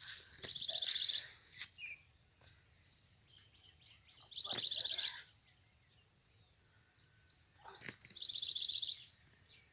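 A songbird repeating the same short phrase three times, about four seconds apart: a quick rising-and-falling note followed by a fast trill.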